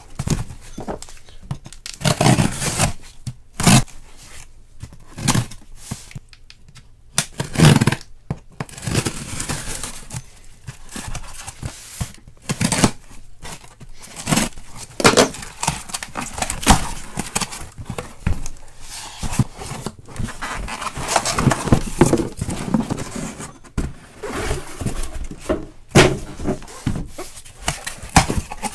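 Cardboard shipping cases being opened and handled: tearing and scraping of cardboard and tape, with irregular knocks and thunks as sealed hobby boxes are pulled out and stacked.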